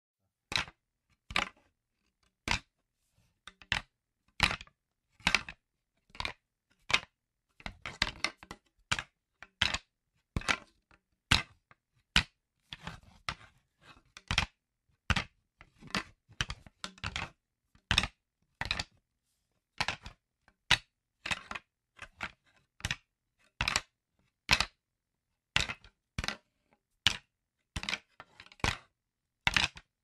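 Wooden sticks clacking against each other in short, sharp strikes at an uneven pace of about one or two a second, now and then in quick flurries of several hits, with silence between.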